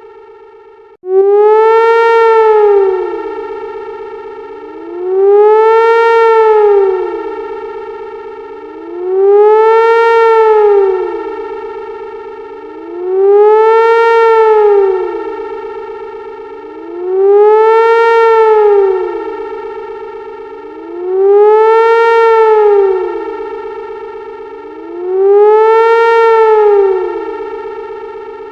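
Synthesized sci-fi siren: a futuristic alarm whose pitch rises and falls about every four seconds over a steady held drone, each swell loud and then fading. It cuts back in sharply about a second in.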